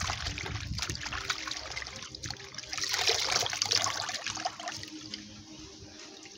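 Hands swishing spinach leaves in a glass bowl of water, then lifting them out so water trickles and splashes back into the bowl, loudest about three seconds in.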